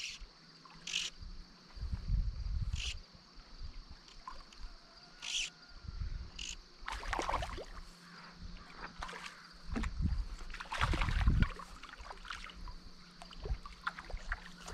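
A hooked trout splashing and thrashing at the water's surface as it is played in and netted, in irregular bursts with low rumbles between them.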